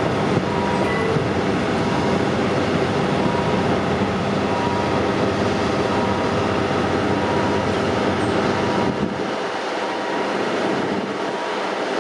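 Diesel train running on the rails, engine and wheel noise together, with the deep engine sound falling away about nine seconds in.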